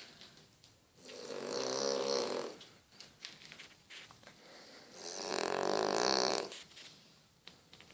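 French bulldog snoring: two long snores, each about a second and a half, some four seconds apart.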